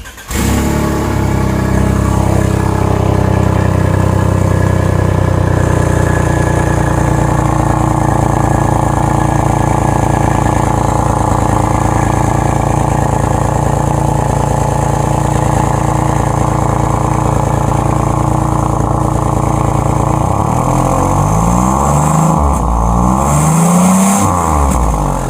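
2006 Subaru Tribeca's 3.0-litre flat-six running loud with an oxygen sensor pulled from the exhaust, so exhaust blows straight out of the open sensor port. It is revved up and down a few times near the end to check for a restricted catalytic converter.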